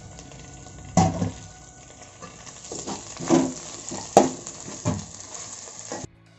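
Sliced onions sizzling steadily in hot fat in a wok while a steel spoon stirs in crushed green chilli and garlic, scraping and knocking against the pan about half a dozen times. The sizzling cuts off suddenly near the end.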